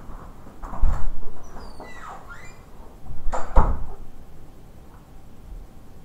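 Two dull thumps, about a second in and again about three and a half seconds in, the second the louder, with a short run of high squeaks that slide up and down between them.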